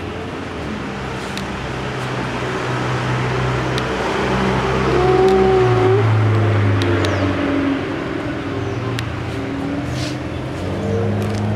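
Motor vehicle engine running, its pitch shifting in steps. It grows louder toward the middle and eases off again, with a brief higher tone about halfway through.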